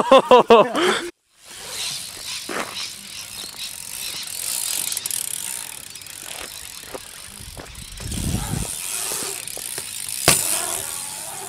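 BMX bike tyres rolling over a concrete skatepark with a steady hiss and small rattles of the bike. Near the end a single sharp knock sounds as a bike lands from an air.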